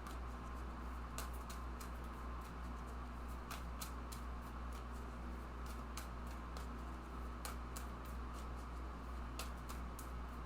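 Tarot cards being shuffled and handled: irregular light clicks and snaps of the cards, over a steady low hum.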